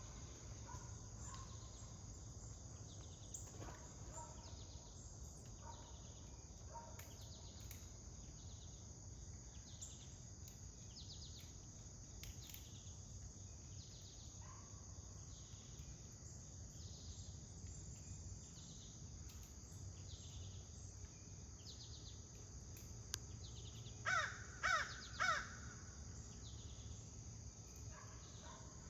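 Outdoor ambience of insects chirring steadily at a high pitch, with a small bird chirping over and over. Near the end a larger bird, likely a crow, gives three loud calls in quick succession.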